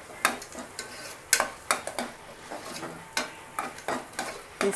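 Steel spoon stirring masala in an aluminium pressure cooker, striking the pot's side in sharp irregular clinks about twice a second, over a light sizzle of frying in oil.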